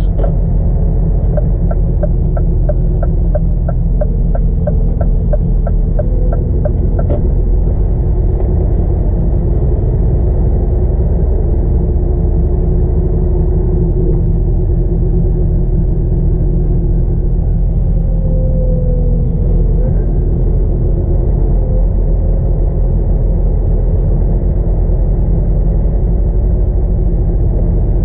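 Scania R450 lorry's 13-litre straight-six diesel heard from inside the cab, running steadily at low speed as a low drone. A quick, regular ticking, about three a second, runs for some six seconds near the start.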